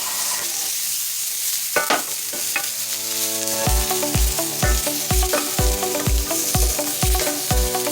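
Halved Brussels sprouts sizzling in a hot oiled skillet, steaming in a splash of added water. About halfway through, background music with a steady beat comes in over the sizzle.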